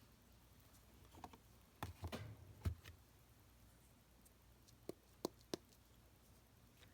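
Faint taps and knocks of craft supplies being handled on a work table, with a small cluster about two seconds in and three short sharp clicks a little past the middle.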